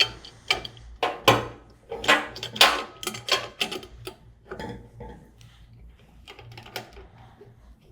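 Irregular metal clinks and rattles as the casing clamp is fitted around the casing of a Waukesha 200 Series centrifugal pump. The clicks are sharpest in the first few seconds and lighter after.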